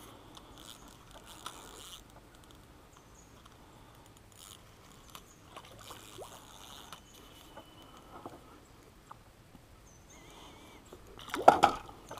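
Ultralight spinning reel being cranked in short spells, with faint clicks and a light whir, while a catfish is fought on light line. Near the end comes a brief, loud burst of splashing as the catfish is scooped up in the landing net.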